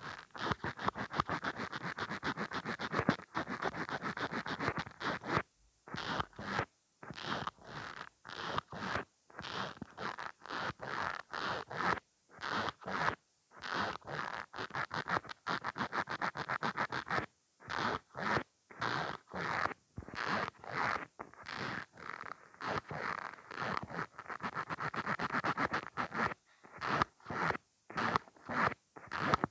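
Mascara wand pumped rapidly in and out of its tube, making quick sticky, scratchy clicks in runs of a second or two with short pauses between.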